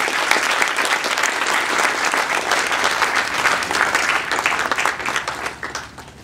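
Audience applause, dense and steady, fading out near the end.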